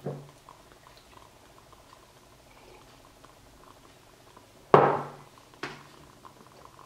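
A mug set down on a wooden table with one sharp knock, followed by a softer knock under a second later, among faint small ticks and rustles of handling pages and pens.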